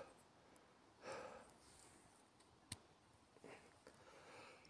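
A man breathing out softly, two or three faint breaths in cold night air, with one sharp click about halfway through.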